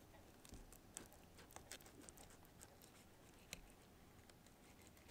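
Near silence, broken by a few faint soft clicks and taps from a fillet knife and hands working a crappie on a plastic cutting board.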